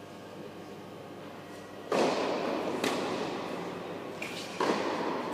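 Tennis ball struck hard by rackets during a rally, two loud hits about two and a half seconds apart, each ringing out in the echo of a large indoor hall, with lighter taps between.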